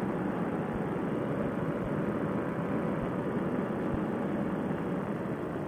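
Paramotor trike's Fresh Breeze Monster engine and propeller running in flight, a steady, unbroken drone.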